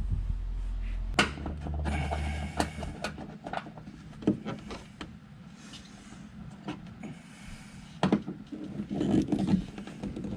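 Scattered knocks and clicks of hands and tools working a plastic wheel well liner into place, with a steady low hum for the first few seconds.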